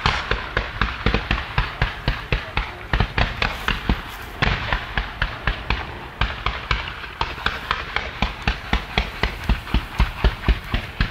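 Fireworks display firing in rapid succession: an unbroken string of sharp bangs, about four or five a second, with a brief hiss a little before the middle.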